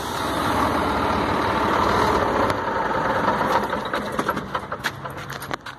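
Scania 114 truck's diesel engine idling, growing louder over the first couple of seconds and then easing, with a run of sharp clicks and knocks toward the end.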